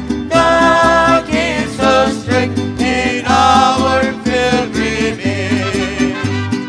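A hymn sung by a voice with vibrato over instrumental accompaniment, a bass line moving in a steady beat beneath it.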